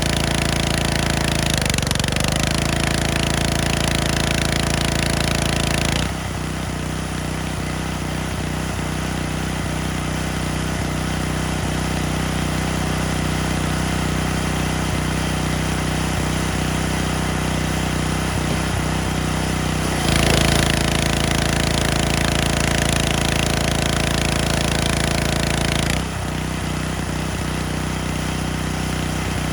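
Gasoline engine of a pressure washer running steadily, with the high-pressure spray hissing from the start until about six seconds in and again for about six seconds near the end. The engine pitch sags briefly about two seconds in.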